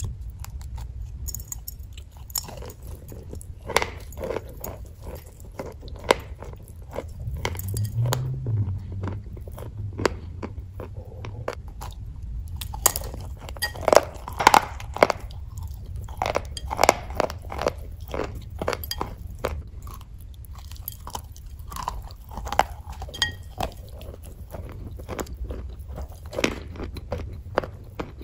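Close-miked biting and chewing of a crumbly white chunk topped with soft grey paste: many sharp crunches and crackles, coming thickest in two spells after the middle.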